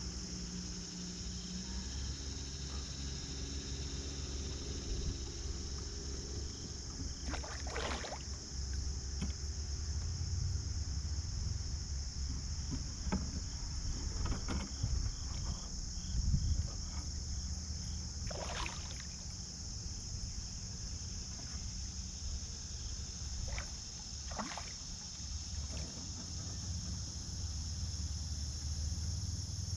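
Kayak on a river: water and hull sounds with a few brief splashes or knocks spread through, over a steady high drone of insects.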